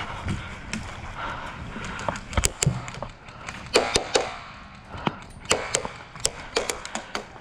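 Airsoft guns firing: a dozen or so sharp snaps in irregular clusters, starting about two seconds in.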